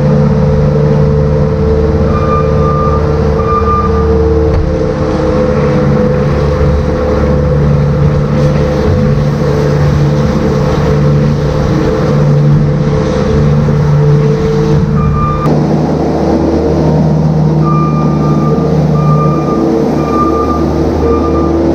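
Farm machine's engine running steadily, its note changing about two-thirds of the way through, with a reversing alarm beeping in two runs, near the start and near the end.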